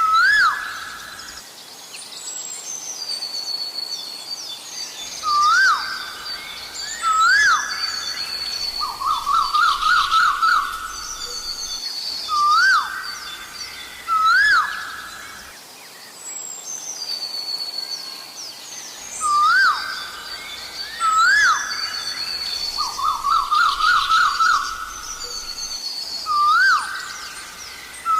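Asian koel calling its loud rising "ko-el" note, repeated every couple of seconds, twice breaking into a fast run of notes. Smaller birds chirp thinly and higher behind it, and the whole sequence plays through twice.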